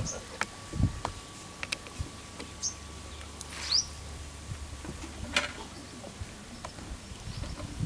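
Knife slicing a raw potato on a steel plate: irregular sharp taps as the blade cuts through and meets the plate, with a few short rising bird chirps in the background.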